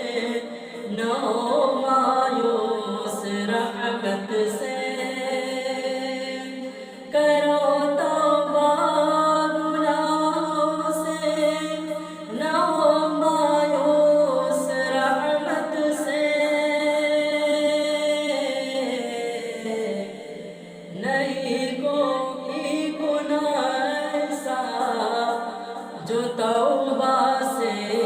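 Wordless a cappella devotional singing: layered voices carry a gliding melody over a steady held drone note, pausing briefly twice.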